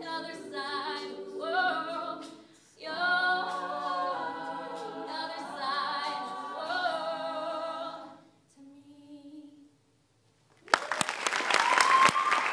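Women's a cappella group singing the closing phrases of a song in close harmony, with a solo voice on top. The song ends about eight seconds in on a soft held note, then after a short pause the audience breaks into loud applause near the end.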